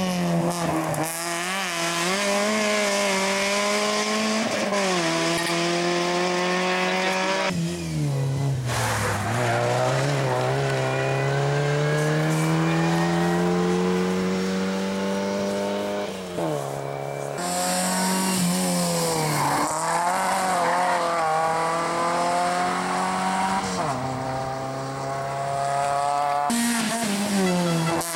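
Small hatchback rally cars passing one after another flat out, each engine revving hard, its pitch climbing through the gears and dropping as the driver lifts. The sound switches abruptly several times from one car to the next.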